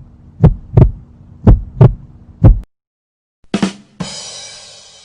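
Heartbeat sound effect: paired lub-dub thuds about once a second, stopping about two and a half seconds in. After a short silence comes a brief knock, then a bright hissing crash that fades out over about a second.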